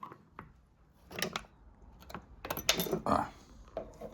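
A scattering of small metallic clicks and clinks, a few in quick succession in the second half: a flathead screwdriver and the wheel's steel circlip being handled at the mower's axle.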